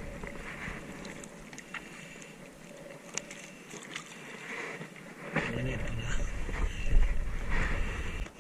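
Shallow sea water sloshing and splashing close to the microphone, with scattered small clicks. From about five seconds in, louder low rumbling buffets and splashes join.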